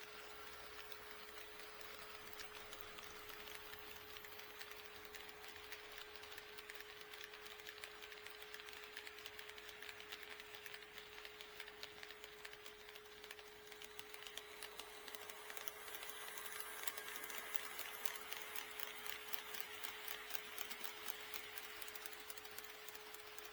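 HO scale model train running on sectional track, its wheels ticking rapidly over the rail joints over a steady hum. The ticking grows louder for several seconds about two-thirds of the way through as the train passes close.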